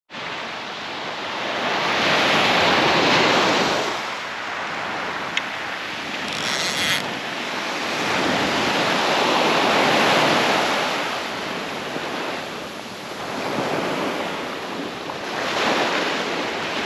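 Small surf breaking and washing up a sand beach, swelling and ebbing every few seconds, with wind buffeting the microphone. A sharp click sounds about five seconds in.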